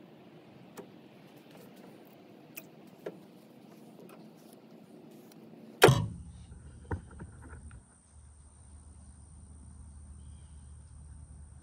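Quiet handling sounds with a few small clicks as skin is pulled off bluegill fillets by hand on a plastic cutting board. About six seconds in there is one sharp, loud knock with a short ring, after which only a faint steady hum and a thin high whine remain.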